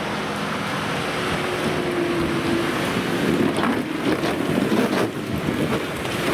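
Off-road 4x4's engine running hard under load as it climbs through mud, getting louder and rougher about three seconds in as it passes close by, with the tyres churning the mud.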